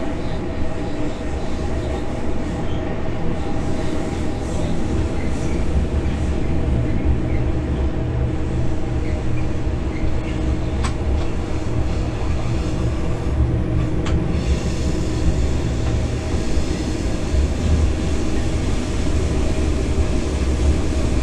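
Electric locomotive heard from the driver's cab while running along the line: a steady low rumble of wheels on rail with a constant hum from the running gear. Two short sharp clicks stand out, around the middle of the stretch.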